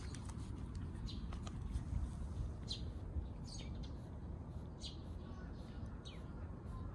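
Small birds chirping: short, high, falling chirps repeated about once a second, over a steady low rumble.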